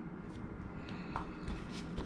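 Faint handling noise, a few soft clicks and rustles, over a steady low background hum.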